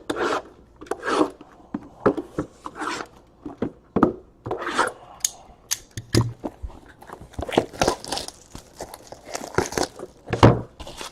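Trading card packaging being torn open by hand: irregular ripping and crinkling of wrappers and card stock.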